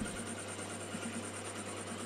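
Mini lathe running with its spindle and chuck turning: a steady motor hum with a thin, constant high whine above it.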